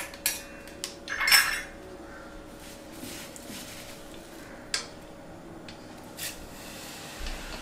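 Stainless steel perforated frying ladle clinking and scraping against a metal kadai of hot oil: a few sharp knocks, the loudest and longest about a second and a half in, then single clinks spread through the rest.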